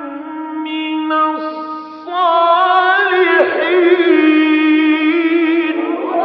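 A male Qur'an reciter's voice chanting in the melodic tajweed style, holding long sustained notes in a high voice. About two seconds in it grows louder, and a little later it moves into a wavering, ornamented note held almost to the end.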